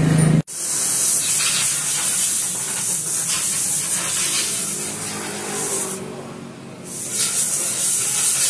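A spray hissing steadily after a cut, stopping for about a second around six seconds in and then starting again.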